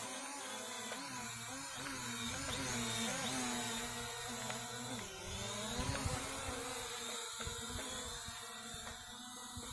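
Small quadcopter drone flying, its propellers giving a buzzing whine that rises and falls in pitch as it manoeuvres.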